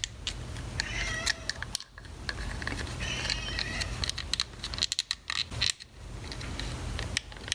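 Small clicks and scrapes of a plastic shaver casing being handled and pried apart. Two short high-pitched squeaks come about a second and three seconds in.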